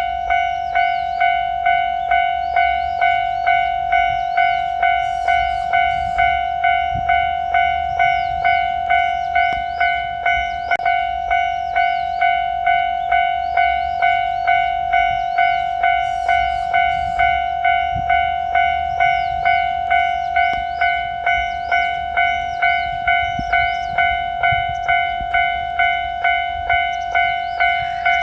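Japanese railway level-crossing warning bell ringing steadily with its "kan-kan" strokes, about three strokes every two seconds.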